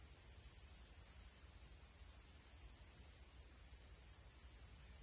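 Steady high-pitched insect chorus, a continuous shrill drone with a slight pulsing.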